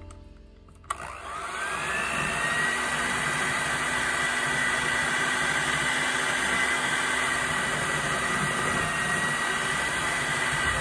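Electric hand mixer switched on with a click about a second in, its motor whine rising quickly and then running steadily as the wire beaters whip softened butter into an egg-yolk buttercream in a glass bowl.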